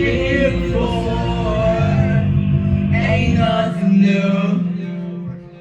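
Music: a voice singing over a beat with heavy bass. The bass drops out about two-thirds of the way through, leaving the voice over a held low note as the level falls away.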